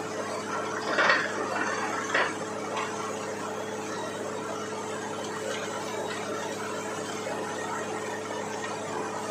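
Borewell drilling rig running with a steady mechanical hum, broken by two sharp knocks about one and two seconds in and a fainter one just after.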